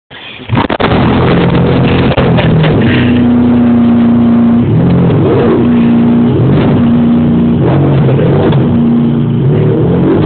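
Ferrari Enzo's V12 engine starting: it fires about half a second in, catches, and settles into a loud idle, with several short throttle blips that swing the pitch up and back down.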